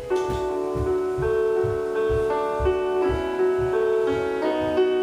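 Music: held keyboard notes changing pitch over a steady low pulse of about three beats a second.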